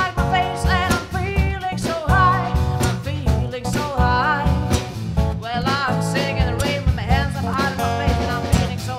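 Live acoustic band performance: acoustic guitar strumming a steady rhythm under a voice singing.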